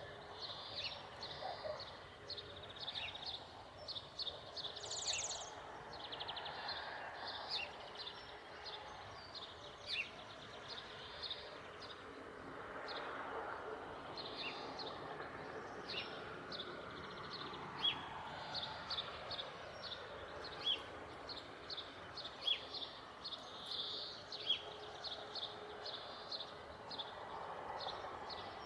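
Many small birds chirping in rapid, overlapping short calls throughout, over a steady background hum with slow swells.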